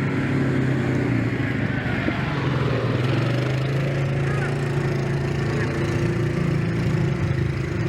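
An engine idling steadily at an even pitch, with a few short high chirps over it.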